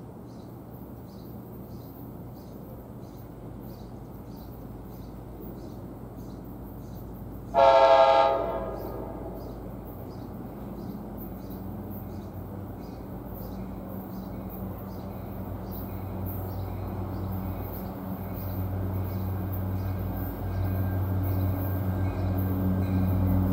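NJ Transit commuter train approaching, its rumble growing steadily louder, with one short horn blast about eight seconds in. A faint bell ticks about twice a second throughout, typical of a grade-crossing bell.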